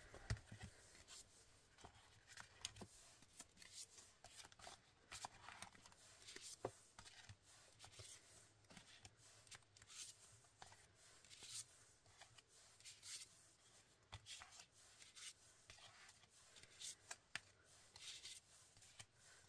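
Faint, irregular rustling, sliding and light taps of cardstock greeting cards being handled and laid onto a pile.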